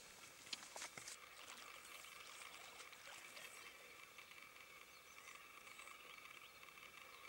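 Near silence: faint outdoor ambience with a steady low hiss, and a few soft clicks in the first second or so.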